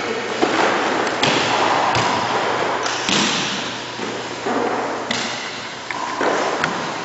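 Two people grappling on foam gym mats: bodies scuffling, sliding and thudding against the mat in uneven bursts, with several sharp knocks along the way.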